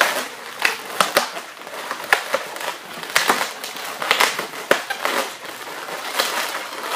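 Latex twisting balloons squeaking and rubbing against each other and the hands as a balloon sculpture is twisted and handled, with irregular sharp squeaks and creaks several times.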